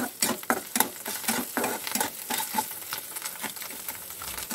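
Boiled, mashed pumpkin frying in ghee in a kadhai, with a steady sizzle and the spatula scraping and knocking against the pan a few times a second as it is stirred. The sizzle is the pumpkin's leftover water cooking off; it is fried until this sound dies down and the pumpkin turns reddish.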